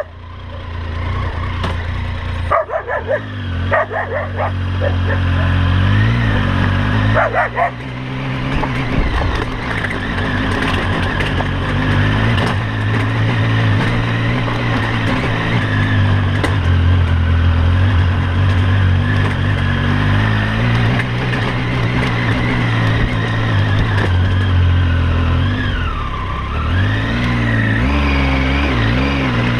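Triumph Tiger 800 XC's three-cylinder engine running while riding, steady for most of the time, with its pitch rising and falling near the end. Clusters of short sharp sounds come about three seconds in and again about seven seconds in.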